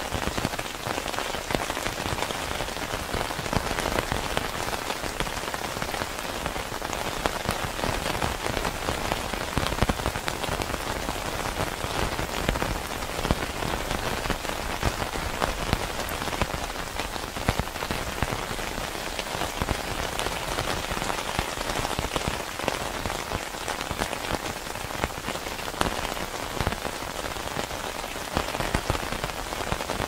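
Steady rain, a dense patter of countless small drop impacts on a surface with no let-up.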